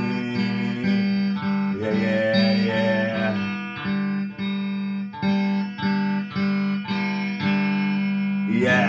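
Electric guitar strummed in a steady rhythm, repeating chords about twice a second. A singing voice comes in at the very end.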